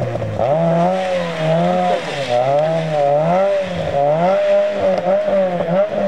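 Peugeot 206 rally car's engine revving up and down in quick waves, its pitch rising and falling about once a second, as the car pulls away on an icy surface.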